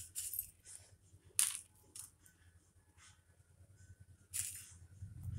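A few short, light rustling patters, about four in all: crisp sev namkeen being sprinkled over toast on a steel plate.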